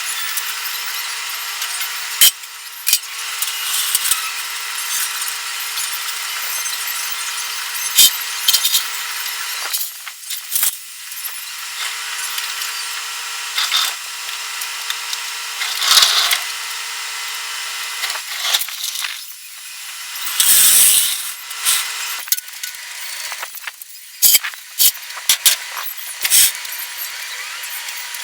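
A power tool running with a steady whine and hiss, stopping about ten seconds in and again about eighteen seconds in. Scattered sharp knocks and clanks come between runs, and there is a loud burst of hiss about twenty seconds in.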